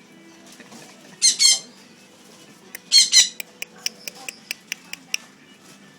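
Cockatiel calling: two loud, harsh screeches about a second and three seconds in, followed by a quick run of short, sharp chirps that stops about five seconds in.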